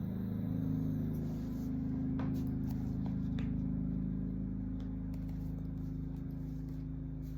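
A steady low hum from a running motor or engine, with a few faint clicks.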